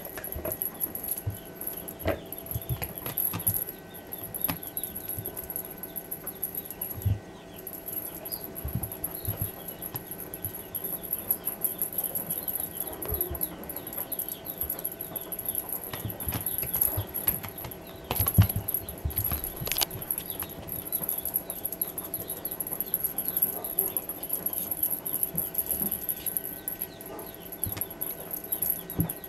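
A kitten at play with a plastic ball-track tower toy and a feather wand on carpet: scattered knocks, thumps and rattles from the toy and the kitten's paws. Bird calls chatter in the background over a faint steady hum.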